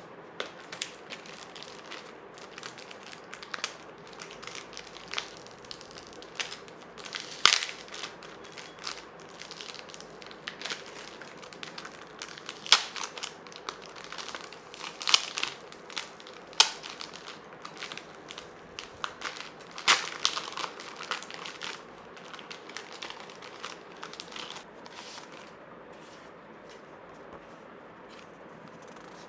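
Irregular crinkling and rustling with scattered sharp clicks and taps, as of hands handling something crinkly, easing off in the last few seconds.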